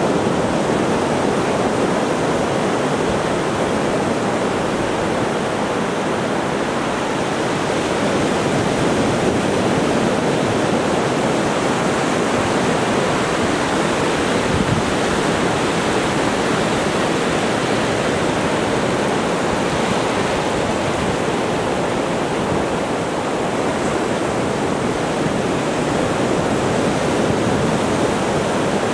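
Ocean surf breaking offshore and washing up over the wet sand, a steady rush of water.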